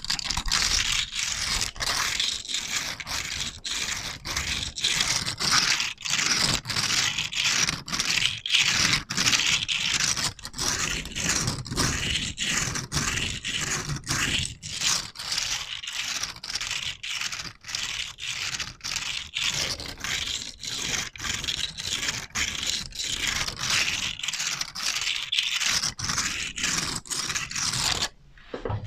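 Rapid, repeated scraping strokes on a surface, about two to three a second, played as an ASMR scratching trigger; they stop just before the end.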